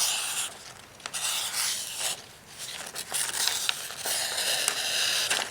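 A VG-10 steel knife blade being drawn across material in a sharpness test: several scraping slicing strokes, the longest running through the second half. The edge is judged sharp.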